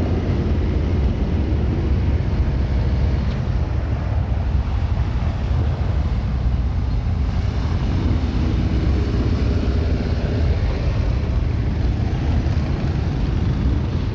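Steady low rumble of a moving vehicle, engine and road noise running evenly without a break.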